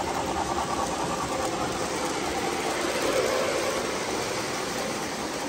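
O gauge model trains running on the layout's three-rail track: a steady rumble of wheels and motors with a faint motor whine.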